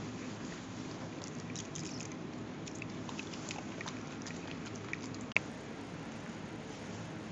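Small clicks and taps of plastic specimen vials and a plastic-backed bench pad being handled, over steady room noise, with one sharp click about five seconds in.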